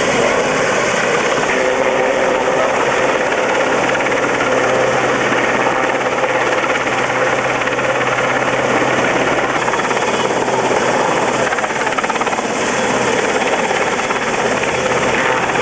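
Westland Sea King helicopter hovering low over the water: loud, steady rotor and turbine engine noise with no let-up.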